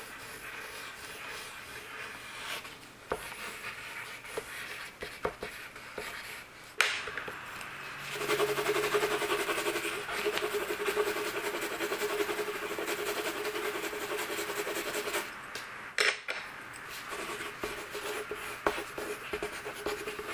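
Coloured pencils scratching on paper: outline strokes, then a louder, denser stretch of fast back-and-forth colouring in the middle, with a few sharp clicks along the way.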